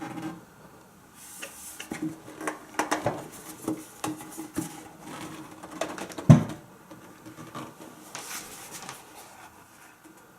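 Irregular clicks, knocks and light rattling of something being handled, with one loud thump about six seconds in, over a faint steady hum.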